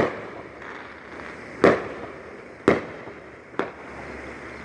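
Aerial fireworks bursting overhead: a string of sharp bangs about a second apart, the loudest near the middle and a fainter one near the end, with a steady hiss of noise between them.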